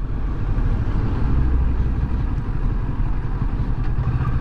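Kawasaki Versys 650's parallel-twin engine running steadily at low speed under way, a continuous low rumble.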